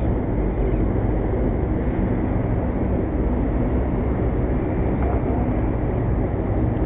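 Wind buffeting the microphone: a steady low rumble with no break.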